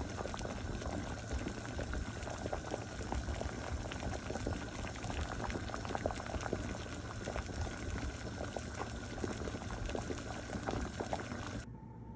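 Water boiling hard in a pot: a steady bubbling hiss with many small pops, cutting off abruptly near the end.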